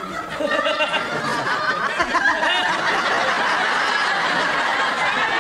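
Studio audience laughing, swelling about half a second in and holding steady.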